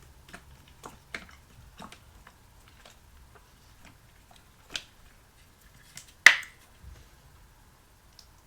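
Close-miked eating sounds: soft, scattered mouth clicks while chewing. A sharper click comes just before five seconds in, and a loud, sharp click with a short ring comes about six seconds in.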